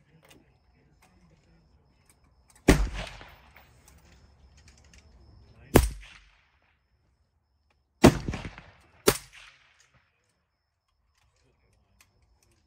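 Four suppressed rifle shots from an Aero M5E1 fitted with a CAT Alley Cat suppressor, spaced progressively closer: the first about two and a half seconds in, the next three seconds later, then two seconds, then one. Each is a sharp crack with a short rumbling tail.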